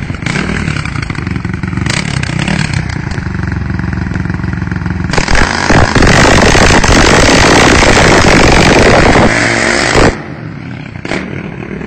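Modified 660 cc quad bike engine running steadily at moderate revs, then from about five seconds in revved hard and very loud at close range for about five seconds as the quad drifts, before dropping away suddenly as it moves off.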